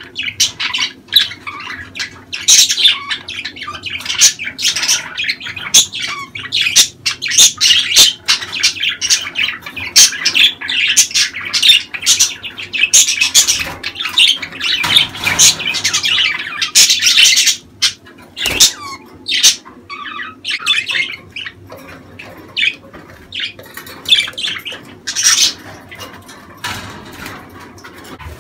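Several budgerigars chattering in a cage: a dense, fast run of short chirps, squawks, clicks and warbles, the breeding-season chatter of budgies.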